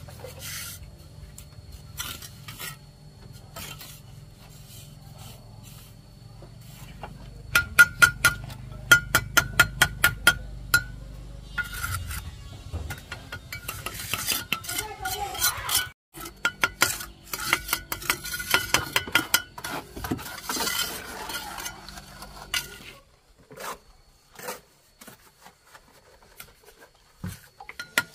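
Masonry hand-tool work: metal scraping through mortar, and a quick run of about a dozen sharp ringing taps around a third of the way in. A steady low hum underneath stops near the end, leaving scattered clicks.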